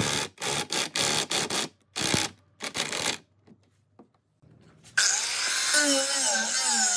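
A cordless impact driver runs in a string of short bursts, driving a screw into pine. After a short near-silent gap, an angle grinder with a sanding disc starts about five seconds in and runs steadily with a wavering whine as it sands the wood.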